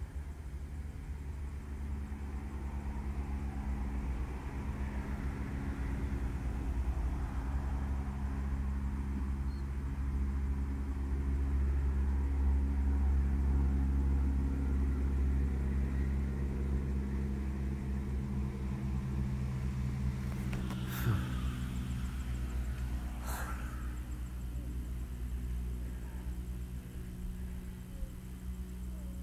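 A low, steady mechanical rumble with a few fixed tones in it, swelling to its loudest around the middle and easing off again, with two brief sharp knocks about two-thirds of the way through.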